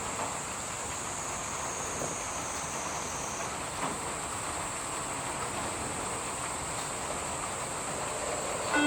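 Steady hiss of falling rain with a high, continuous insect buzz over it; one of the buzzing notes drops out about a third of the way in.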